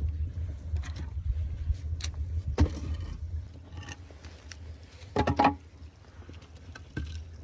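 Split firewood logs knocking and clattering as they are dropped into a clay tandoor onto a burning fire: several sharp wooden knocks, the loudest about two and a half and five seconds in, over a steady low rumble.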